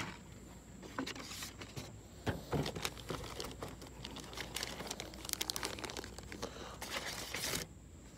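Lure packaging crinkling and rustling as it is handled, in irregular runs of crackles that stop near the end.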